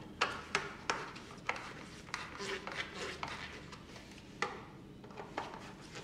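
Irregular clicks and light knocks of hand dryer parts being handled and worked with a screwdriver during disassembly, with one louder knock near the end.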